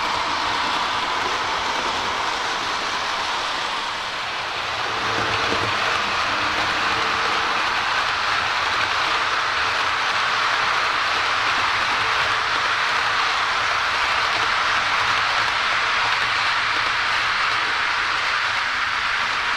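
H0-scale model trains running past on layout track: a steady rolling rattle of metal wheels on the rails and over the rail joints. The sound dips briefly about four seconds in, then rises again as a second train of passenger coaches rolls by.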